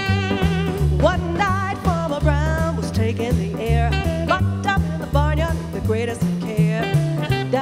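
Live swing band: a woman singing into a handheld microphone over tenor saxophone, a walking upright bass line stepping about twice a second, drum kit and piano.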